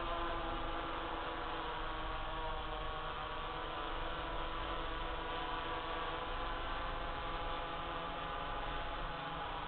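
DJI F550 hexacopter hovering: a steady hum from its six electric motors and propellers, with a slightly wavering pitch.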